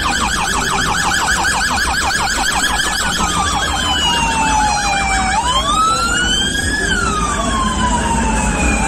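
Electronic vehicle siren sounding a rapid yelp for about three seconds, then switching to a slow wail that falls, rises and falls again.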